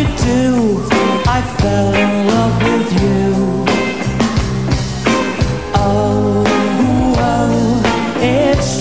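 Live Britpop band playing a song at full volume, with electric guitar, bass, drums and a sung melody, heard through an FM radio broadcast recording.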